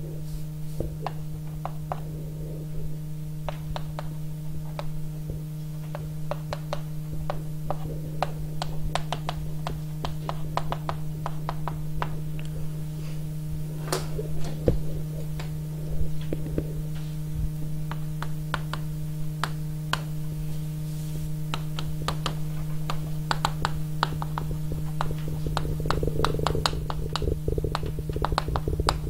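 Steady low hum with many small clicks and taps scattered through it, one sharper tap about halfway through.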